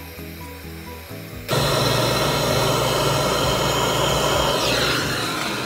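Background music, then about a second and a half in a loud, steady hissing roar of a handheld gas torch flame brazing copper refrigerant tubing at a refrigerator compressor. It fades gradually near the end.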